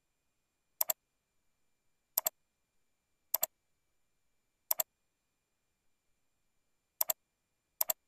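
Computer mouse button clicked six times at uneven intervals, each a sharp two-part click of press and release, as the setup wizard's buttons are clicked through.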